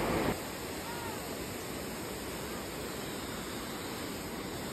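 Steady rushing of a waterfall, the third tier of Elephant Falls, pouring over rock ledges into its pool.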